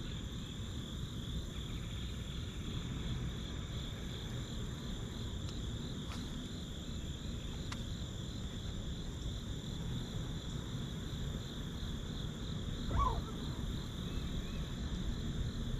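Insects trilling in a steady, even chorus with a fast regular pulse, over a constant low rumble.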